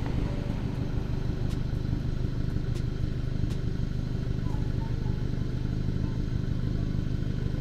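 Steady drone of a motor vehicle's engine and road noise, unchanging in pitch, with a few faint ticks.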